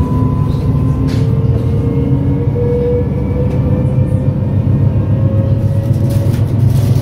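Siemens Mireo class 463 electric multiple unit running at speed, heard from inside: a steady low rumble of the wheels on the rails, with the traction drive's whine rising slowly in pitch.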